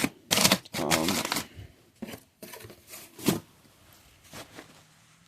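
Handling noise: bursts of rustling and crinkling, like something being moved about in packaging, through the first second and a half and again from about two to three and a half seconds in.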